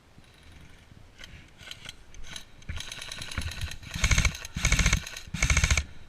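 Airsoft electric gun firing on full auto: a quieter rattle of rapid shots builds from about halfway in, then three loud bursts, each under half a second, close together near the end. A few single clicks come before them.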